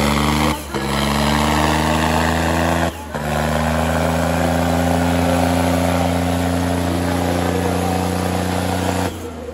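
Tractor's diesel engine running hard at full throttle under heavy load, held at a steady pitch while it pulls against another tractor in a tug-of-war. The sound drops out briefly three times: about half a second in, near three seconds and near the end.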